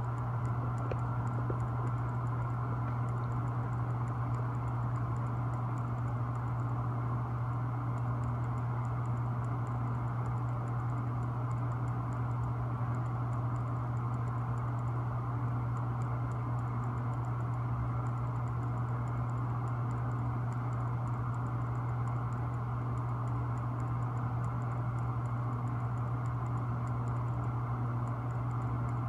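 A steady, unchanging low hum, with faint rapid ticking over it.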